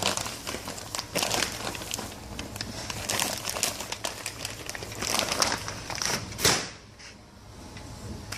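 Bag rustling and crinkling with scattered clicks and knocks as flour is tipped into the mixer, with a louder scrape or thump about six and a half seconds in.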